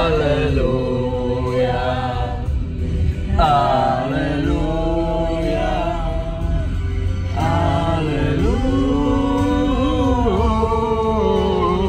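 Voices singing together inside a car cabin, with long held, wavering notes over the car's low steady rumble.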